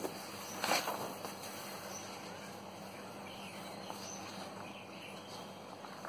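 Paper notes being handled and shifted on a table, with a brief rustle about a second in. Underneath is a steady hiss with a faint low hum.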